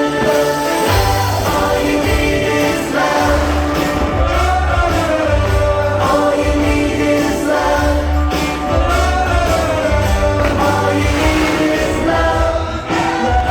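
Show soundtrack music over loudspeakers: a choir-backed song with a strong bass line.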